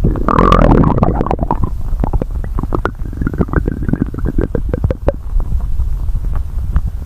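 Stomach growling: a low rumble broken by many short gurgles and pops, loudest in the first second or so.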